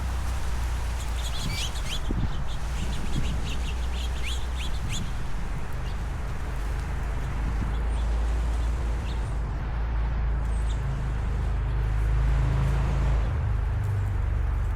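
Small birds chirping, a quick run of short high chirps in the first few seconds and a few fainter ones later, over a steady low outdoor rumble.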